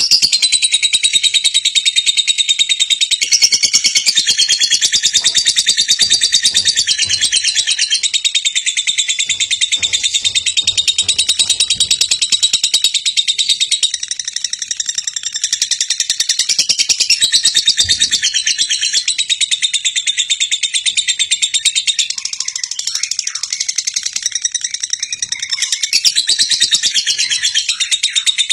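Birds chirping continuously in a dense chorus of rapid high-pitched calls.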